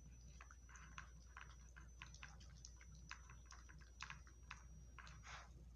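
A dog eating from a plastic bowl: faint, irregular crunching and clicking, several a second.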